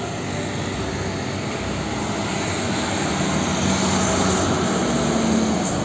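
Street traffic: a tanker truck's engine and passing motorbikes, a steady mix of engine and tyre noise with a low hum. It grows a little louder near the end.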